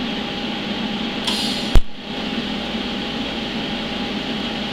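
TIG welding on thin-walled steel tubing: a steady hiss, broken about a second and a half in by a brief high crackle that ends in one sharp, loud pop as the arc strikes, then the arc burning on with a steady hiss.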